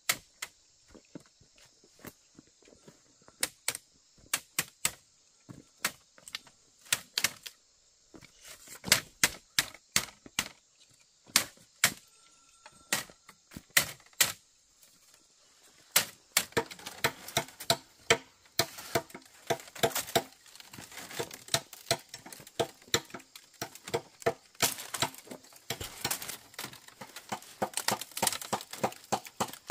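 Sharp knocks and taps from bamboo being worked by hand. They come scattered at first, then quickly and densely from about halfway through.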